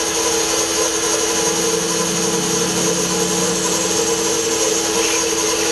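Bench drill press motor running steadily with a whine while its bit drills a 6 mm hole through a small piece of aluminium angle.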